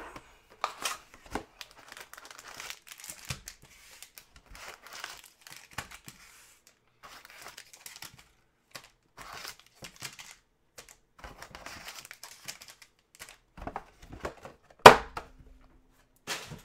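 Unboxing a Panini Prizm football hobby box: packaging crinkling and tearing, then foil card packs rustling and tapping as they are pulled out and stacked on a wooden table. One sharp knock near the end is the loudest sound.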